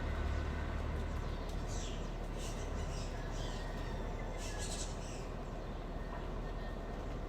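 Morning village ambience: a steady low rumble under a faint even background, with small birds chirping in short bursts through the first five seconds or so.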